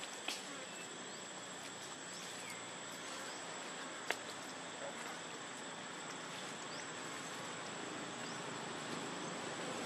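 Steady outdoor insect chorus with a thin, continuous high-pitched tone. Two short sharp clicks cut through it, one just after the start and a louder one about four seconds in.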